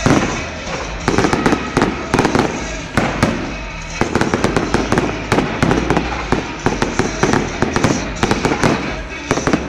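Fireworks going off: a bang right at the start, then dense crackling and rapid sharp pops of bursting shells, coming in clusters.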